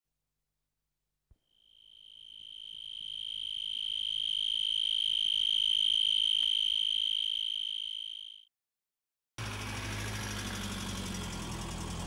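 A continuous, high-pitched cricket trill that swells in and fades out over about seven seconds. From about nine seconds in, it gives way to a steady outdoor background noise with a low hum.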